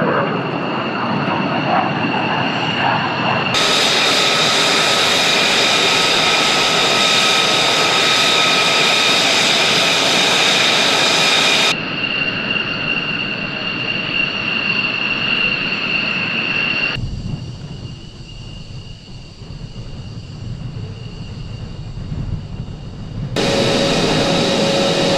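F-35 jet engine noise, the single Pratt & Whitney F135 turbofan: a steady high whine over a loud rushing roar. The sound shifts abruptly several times in tone and loudness, with a quieter, deeper rumble for several seconds after the middle.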